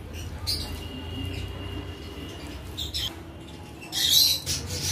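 Close-up eating sounds: mouth smacks and chewing noises in short bursts, the loudest near the end, over a steady low hum.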